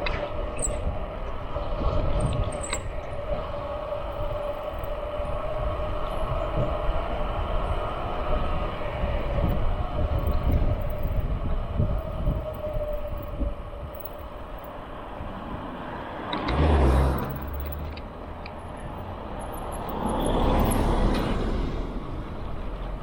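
Traffic and wind noise heard from a moving bicycle: a steady low rumble with a hum through the first half, then two vehicles swelling past, one about three quarters through and one near the end.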